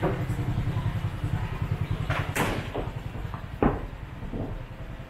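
A small engine running with a low, pulsing hum that fades out about three and a half seconds in. A short hiss comes a little before that, and a sharp knock, the loudest sound, right at the fade.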